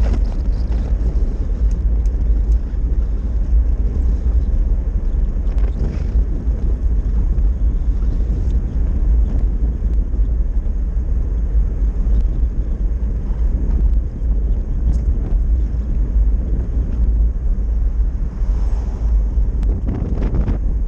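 Steady wind buffeting on the microphone over the road rumble of a Rotovelo velomobile rolling along a sealed road at speed.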